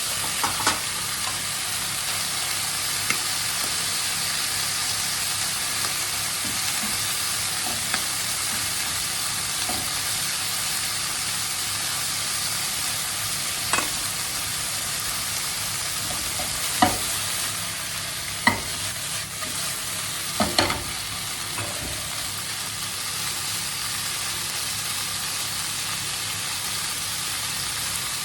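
Chicken livers and onions sizzling steadily in hot olive oil in a frying pan, with a few sharp knocks of a utensil against the pan as they are stirred, the loudest about halfway through.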